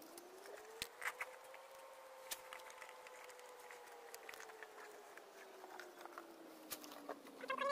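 A faint, distant engine drone that rises in pitch for about two seconds and then slowly falls, like a motor passing by, with a few sharp clicks scattered through it. A louder wavering high-pitched call breaks in at the very end.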